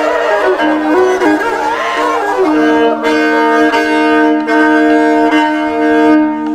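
Violin played as an interlude in a Chakma gengkhuli folk ballad: a short melodic phrase, then long held notes from about two and a half seconds in.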